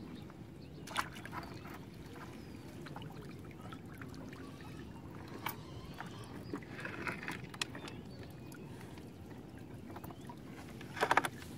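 Water running and dripping off a cylindrical wire-mesh fish trap as it is hauled up out of the river beside a wooden boat, with a few sharp knocks and a brief clatter near the end.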